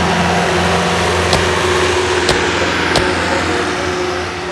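Light pro stock pulling tractor's 466 cubic inch engine running loudly at a steady pitch, with three sharp clicks in the middle.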